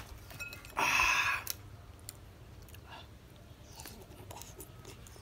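Soft chewing of milk-soaked spicy snack sticks, with faint scattered clicks. About a second in there is a brief loud rush of noise lasting about half a second.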